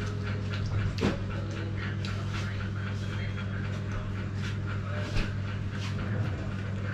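Wet mouth sounds of eating, chewing and lip-smacking in quick short clicks, over a steady low electrical hum.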